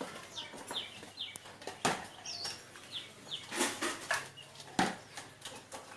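Caged white-eyes giving short, high falling chirps, several in quick succession, mixed with a few sharp rustles of wings flapping in the cage.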